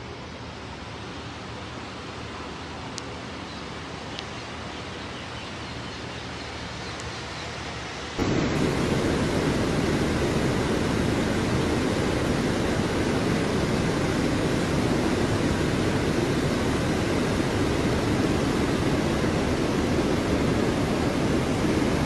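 Steady rain noise, which jumps abruptly to a much louder, heavier rush about eight seconds in.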